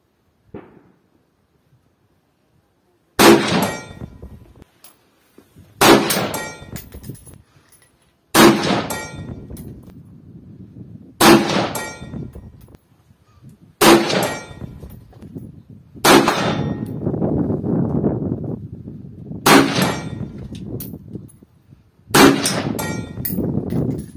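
An AK-101-pattern Kalashnikov rifle (Saiga .223) fired semi-automatically: about eight single shots, two to three seconds apart, starting about three seconds in, each sharp crack followed by a rolling echo.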